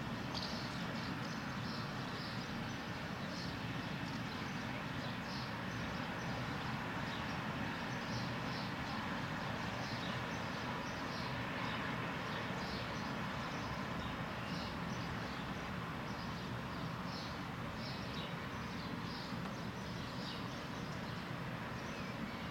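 Steady distant city hum with a bird chirping over it, short high calls about once a second.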